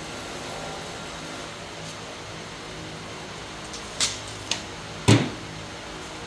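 A wooden board being handled, knocking against hard surfaces: two sharp knocks about four seconds in, then a louder, deeper knock about a second later. Under them runs a steady, fan-like whir.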